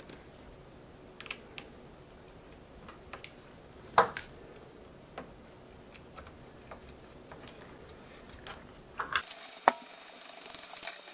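Small clicks and knocks from a plastic switch box being set in place and screwed down onto a wooden table top with a hand screwdriver, with one sharper knock about four seconds in. Near the end the sound gets busier, with scratchy scraping and clicks as a screw is turned in.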